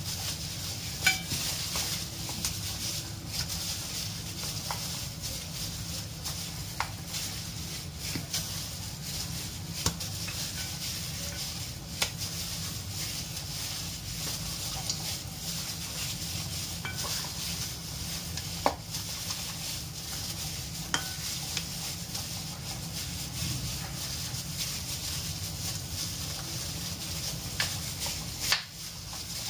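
Pork chops being squished and turned by hand in a soy-sauce marinade in a stainless steel bowl, with a scattering of short sharp clicks as meat or hands knock the bowl, over a steady hiss.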